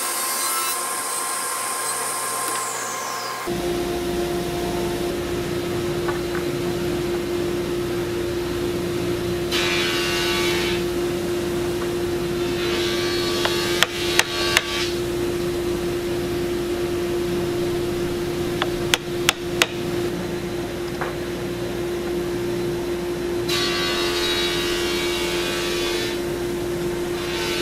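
Mallet blows on a bench chisel cutting into wood: two quick sets of three sharp knocks, over a steady machine hum. Near the start, a table saw's whine falls away as the blade spins down.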